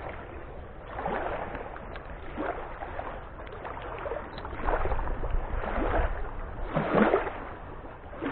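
Water lapping and splashing against the shore in irregular surges, the strongest near the end.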